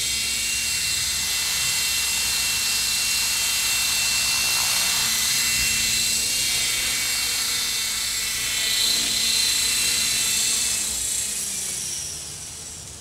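Electric RC helicopter (Falcon 3D) running: its motor whine and main rotor make a steady sound with several high held tones while it hovers low. Near the end the motor winds down as it sets down on the grass.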